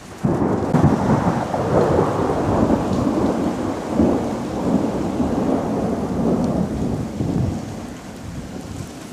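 A long roll of thunder that breaks in sharply at the start and rumbles on, slowly fading, over steady rain during a hailstorm.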